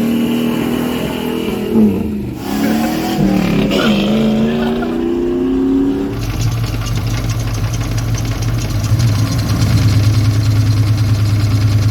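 An engine revving, its pitch rising and falling, then about six seconds in settling into a steady run at constant speed with an even low pulse.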